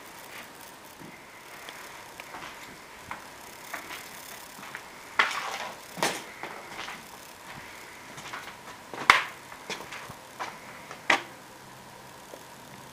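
A handful of irregular sharp knocks and clatters over a faint steady hum; the loudest come about five, nine and eleven seconds in.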